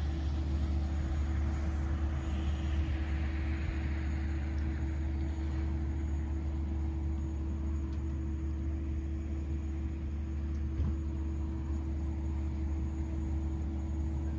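Steady low mechanical drone with a steady hum above it. A wash of hiss swells and fades about two to four seconds in.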